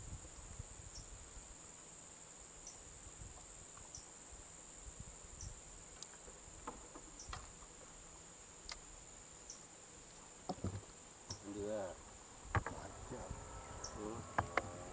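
Insects chirping in one steady high-pitched drone, with short falling chirps about every second or so and scattered small clicks. After about ten seconds a few knocks and a faint wavering voice-like sound come in.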